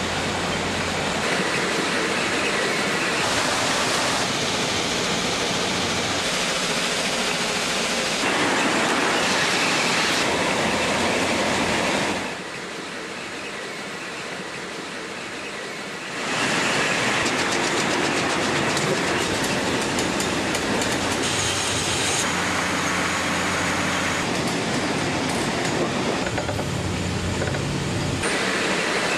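Heavy railway track-maintenance machines working on the track: dense, steady machine noise and clatter. The sound changes character every few seconds and drops quieter for a few seconds in the middle.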